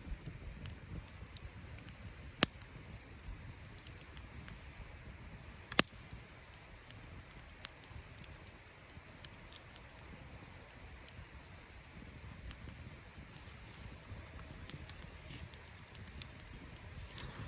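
Wood campfire crackling, with scattered sharp pops. The two loudest pops come about two and a half and six seconds in.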